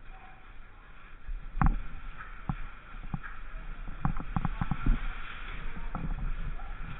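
Indoor airsoft gunfire: irregular sharp clacks of shots and BB hits, single ones at first, then a quick cluster of about six shots about four seconds in, over a steady hiss.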